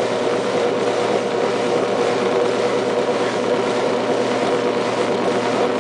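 Washing machine drawing water in at the start of its second cycle, a steady rushing hum with a faint held tone.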